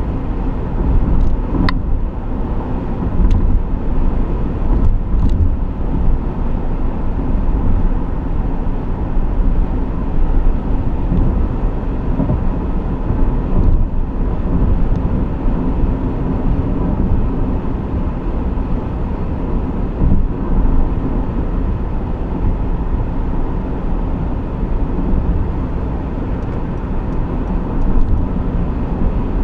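A 2015 Honda CR-V's 1.6 i-DTEC four-cylinder turbodiesel driving along: steady engine and road noise, with a few light clicks in the first few seconds.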